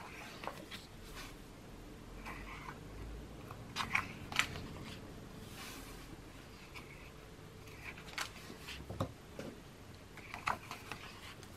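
Paper sheets of a sticker book being turned and handled: scattered soft rustles and crisp flicks, with the sharpest ones about four seconds in and again near ten seconds.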